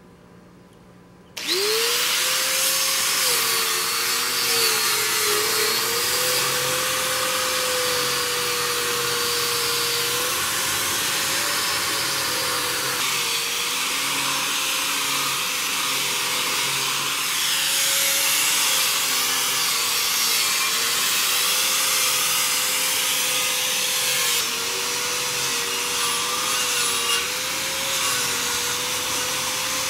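Corded electric angle grinder with a wire brush attachment, switched on about a second and a half in: the motor whine rises as it spins up, then runs steadily with a harsh scrubbing hiss as the wire brush strips surface rust off the smoker's steel frame. The pitch dips and wavers as the brush is pressed against the metal.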